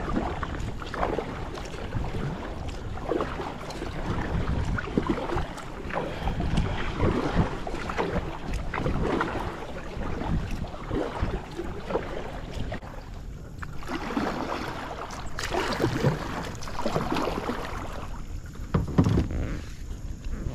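Water splashing and sloshing around a kayak in repeated strokes about once a second, with wind buffeting the microphone.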